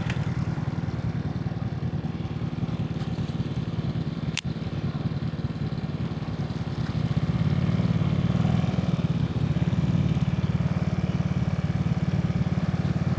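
Small motorcycle engine running steadily at low revs, getting a little louder about seven seconds in. A single sharp click just past four seconds.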